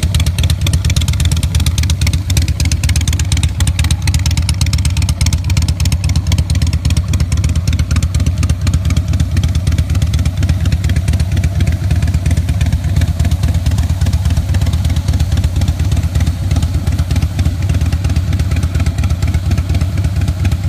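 Harley-Davidson FXSB Breakout's V-twin engine idling steadily, a loud, deep exhaust beat of rapid even pulses.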